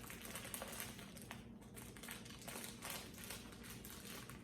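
Faint crinkling and rustling of a plastic marshmallow bag as hands reach in among the marshmallows, with soft scattered rustles over a low steady room hum.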